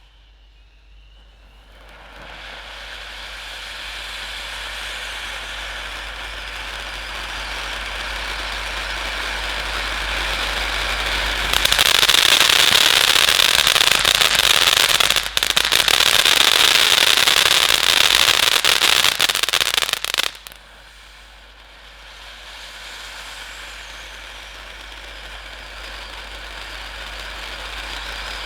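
A large 500-gram Vegas Baby fountain firework spraying with a dense hiss that builds steadily. It turns much louder and brighter from about twelve seconds in, cuts back sharply about twenty seconds in, then swells again.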